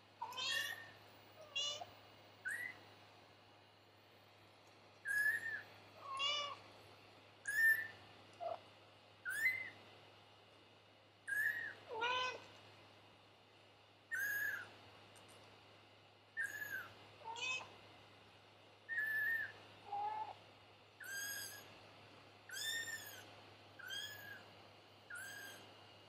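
Tiny kittens mewing: short, high-pitched, arching cries about once a second, with a few lower, longer cries among them.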